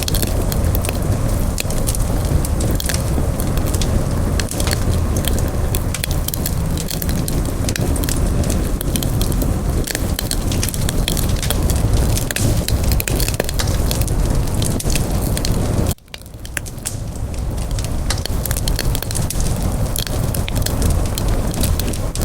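Campfire burning, with frequent sharp crackles and pops from the wood over a steady low rumble of flame. About sixteen seconds in, the sound drops out for a moment, then comes back.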